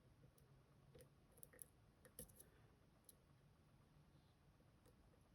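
Faint, scattered clicks of a lock pick working the spring-loaded sidebar sliders inside an M&C Color+ dimple lock, a few light ticks a second apart over near silence.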